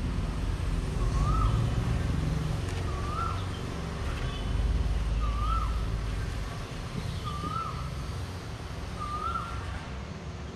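A bird calling: one short, clear note that rises and falls, repeated about every two seconds, over a steady low rumble.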